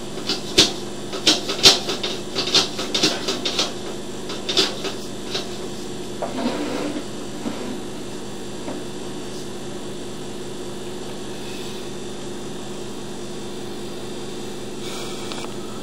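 Sewer inspection camera's push cable being pulled back out of a drain line: a run of sharp clicks and knocks for the first five seconds or so. These then stop, leaving a steady hum.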